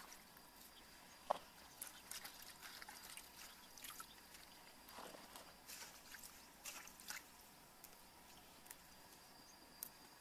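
Faint scattered rustles and small clicks of lettuce and leafy greens being handled and leaves picked off their stems in an aluminium bowl, with one sharper click about a second in.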